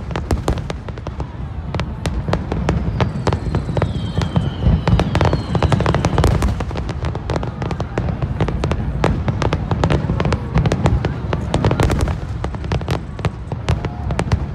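Fireworks finale barrage: many aerial shells bursting in quick succession, rapid overlapping bangs over a continuous low rumble.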